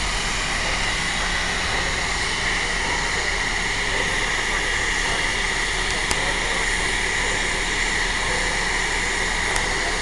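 Nickel Plate Road 765, a 2-8-4 Berkshire steam locomotive, standing and blowing off its built-up excess steam in a loud, steady hiss, letting the boiler cool down.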